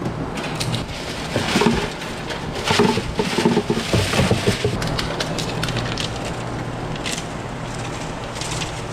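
Irregular crackling, crinkling and clinking as paper-insulated sheet-copper transformer windings and other scrap are pulled apart and handled by hand, over a steady low hum.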